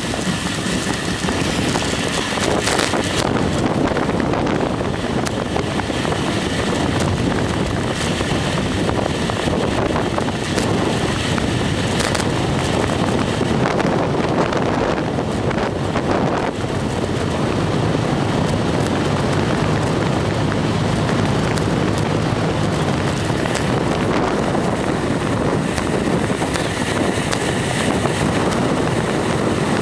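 Steady wind rushing over the microphone of a camera moving along a road, mixed with road rumble. A few brief knocks or rattles come through.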